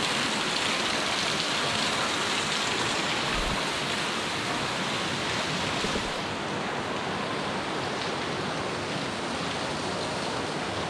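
Steady rushing of water, an even hiss with no separate drops or splashes; the highest part of the hiss falls away about six seconds in.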